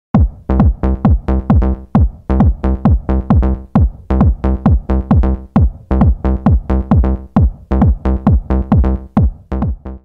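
Electronic dance music intro: a fast run of heavy drum-machine hits, each dropping sharply in pitch, over a steady deep bass, cutting off at the end.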